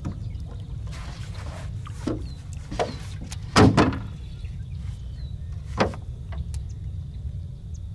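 Hooked redfish thrashing at the side of a small boat: four sharp splashes over a steady low rumble, the loudest a double splash about three and a half seconds in.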